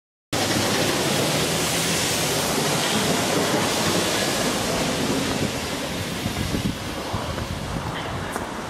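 Wind blowing across the camera microphone: a loud, even rushing noise that cuts in suddenly about a third of a second in and eases slightly after about five seconds.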